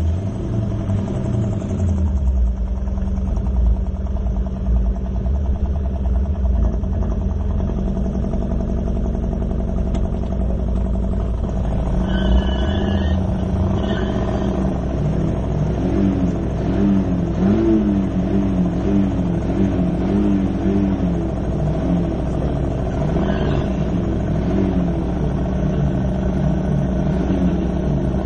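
Car engine running: a deep low rumble, then from about twelve seconds in a higher engine note whose pitch wavers up and down as the revs rise and fall.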